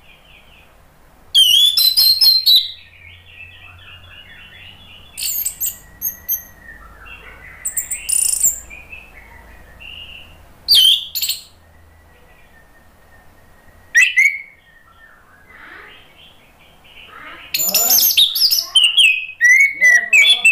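Orange-headed thrush (anis merah) singing in loud bursts of rapid, varied whistled and chattering phrases, with softer warbling between them; the longest, busiest burst comes near the end.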